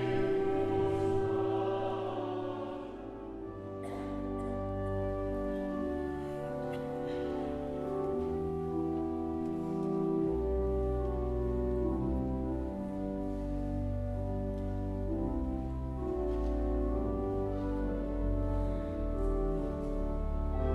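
1878 church pipe organ playing a hymn in slow held chords over deep pedal notes, with choir voices singing along. There is a brief lull about three seconds in.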